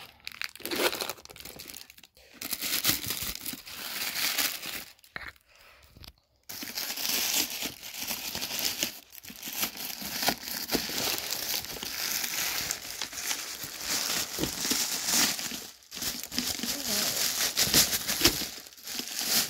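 Plastic and paper packaging crinkling as it is handled, in irregular rustling stretches with a few short pauses, the longest about five to six seconds in.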